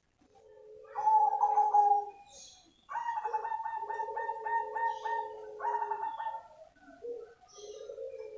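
Zebra dove (a black 'cemani' perkutut) singing. It gives a low coo, then a louder higher note, then a quick stuttering run of about four beats a second, and short coos after it.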